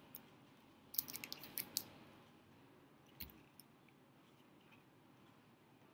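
Faint handling of a folded paper origami dog: a quick cluster of small crinkles and ticks about a second in, then a single tick about three seconds in.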